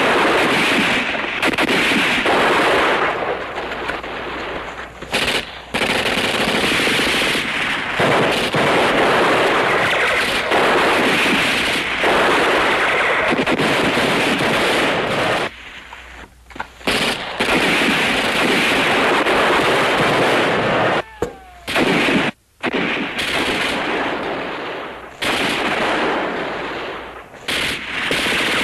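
Battle gunfire sound effects from a war-drama soundtrack: loud, near-continuous machine-gun fire mixed with gunshots, broken by short lulls about sixteen seconds in and again around twenty-one to twenty-two seconds.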